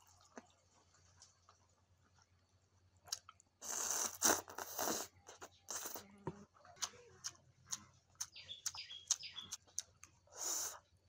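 Close-miked eating of vermicelli noodles: quiet at first, then a loud slurp of noodles, followed by chewing with scattered wet mouth clicks and a second shorter slurp near the end.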